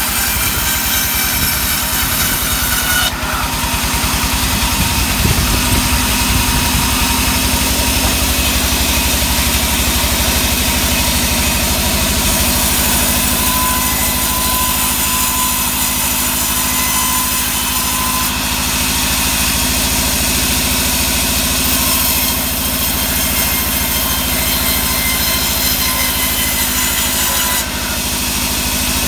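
Engine-driven band sawmill running steadily while its blade rips lengthwise through sengon (albizia) timber. The high-pitched cutting noise changes every several seconds as each pass through the wood starts and ends.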